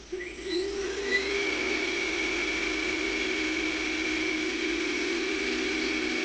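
Lathe motor starting up: its whine rises in pitch over about the first second, then it runs steadily at speed.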